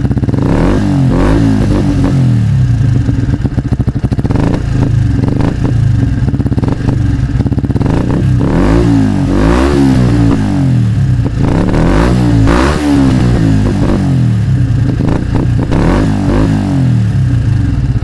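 Yamaha YZF-R125's single-cylinder four-stroke engine through an Akrapovic exhaust, idling and revved up and back down several times with the bike standing still.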